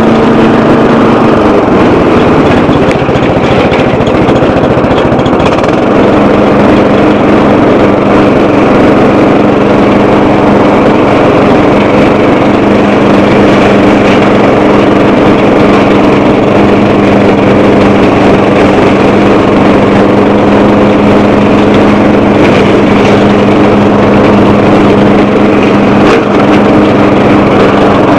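A 12 hp Bolens lawn tractor's engine running loud under load while clearing dense brush. Its pitch sags about a second and a half in, stays low for a few seconds, then comes back up and holds steady.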